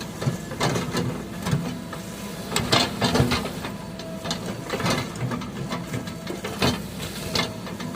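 Vehicle engine idling steadily, with irregular sharp knocks and clatters over it.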